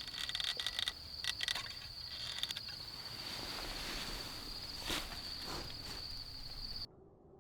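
Steady high-pitched insect trill, cricket-like, with a few short clicks and knocks of something being handled or stepped on over it. It cuts off abruptly near the end, leaving only a faint low hum.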